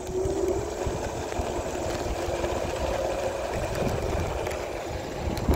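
iSinwheel S9 Max electric scooter under way, its hub motor giving a steady whine over the rumble of tyres and wind. A single sharp knock comes near the end.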